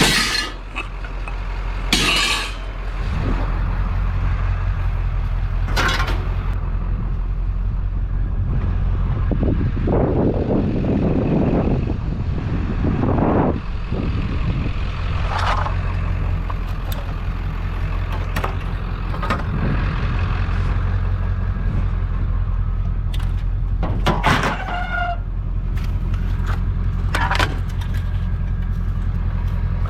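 Steady low rumble of a vehicle engine idling, with scattered knocks and clatters as pieces of scrap aluminum are grabbed and handled.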